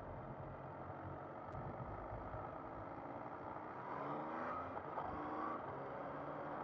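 Motorcycle engine running on the move with steady road noise; about three and a half seconds in its pitch rises as it accelerates, then it holds steady and a little louder.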